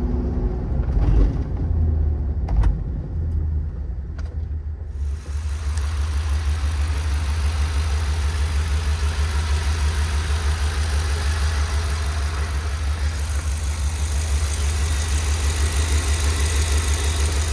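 Ford 7.3-litre gas V8 of a 2022 F-600 service truck. It starts as a muffled low rumble with a couple of sharp clicks. About five seconds in the sound turns brighter and the engine idles steadily with an even low pulse.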